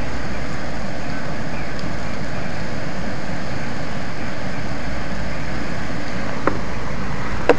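Steady rushing noise of hurricane-force wind and heavy rain. Two short sharp clicks come near the end, about a second apart.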